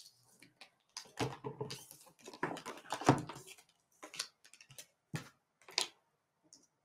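Connection Oracle cards being dealt and laid out on a cloth reading mat on a table: soft slides, slaps and taps of card on card and card on mat. A busy run of handling comes in the first half, then a few single taps as the last cards are set down.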